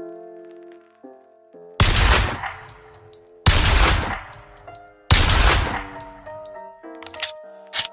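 Mauser C96 pistol firing three loud shots about a second and a half apart, each with a long echoing tail, followed near the end by two shorter, sharper cracks, over background music.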